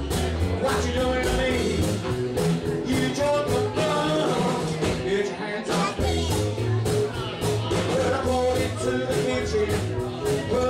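Live rock and roll band playing: electric guitar and upright double bass over a steady drum beat, with a man singing into a microphone.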